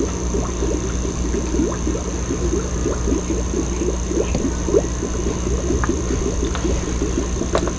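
Water sloshing and gurgling as a hand aquarium net is swept back and forth through a shallow fish tank, many small quick splashes one after another, with a steady hum underneath.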